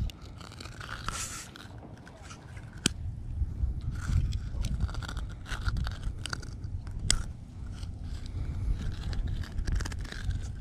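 Metal fishing pliers clicking and scraping on a hook set deep in a bass's mouth as it is worked free, with rough rubbing and handling noise from the fish held against the camera. A few sharp clicks stand out, the clearest about three and seven seconds in.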